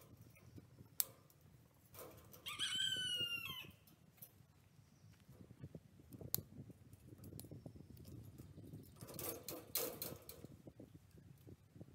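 A rooster crows once, about a second long, a little over two seconds in; this is the loudest sound. Around it come sharp metal clicks from the wire fence being worked at the steel T-posts, and a short clatter of the fencing near the end.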